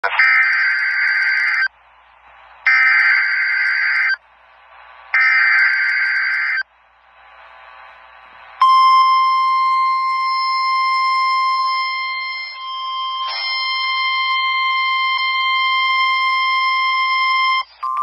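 Emergency Alert System severe thunderstorm warning: three shrill bursts of the SAME digital header, each about a second and a half long with short gaps between them. Then a single steady high alarm tone, the weather-radio warning attention signal, held for about nine seconds before it cuts off.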